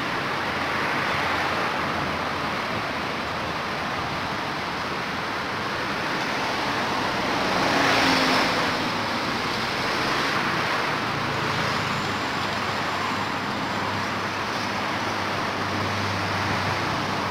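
Steady road traffic noise, with one vehicle passing and swelling loudest about eight seconds in before fading.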